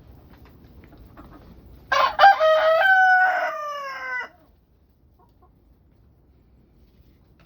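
A rooster crows once, about two seconds in: one call of a little over two seconds that slides down in pitch at its end. Faint light ticks come before it.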